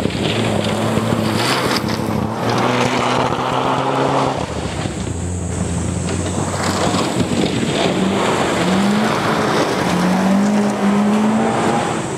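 Rally car engine revving hard on a gravel stage, its pitch climbing and then dropping back several times with gear changes.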